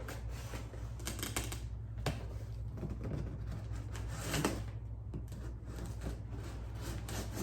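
A cardboard box being cut open with a knife and handled: scattered crackles, scrapes and clicks of tape and cardboard, busiest about a second in and again past the middle.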